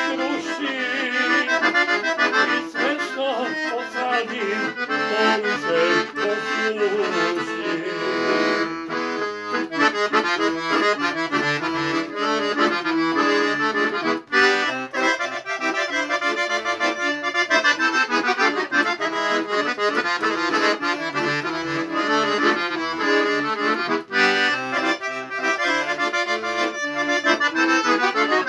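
Hohner piano accordion being played solo: a continuous run of melody over bass and chords, with two very brief breaks, one near the middle and one later on.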